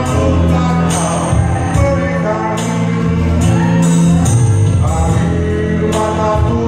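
Background music: a song with a male singing voice over a steady beat and bass.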